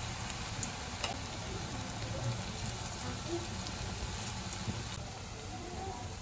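Onion pakoras deep-frying in hot ghee in an iron kadhai: a steady sizzle with a few scattered crackles.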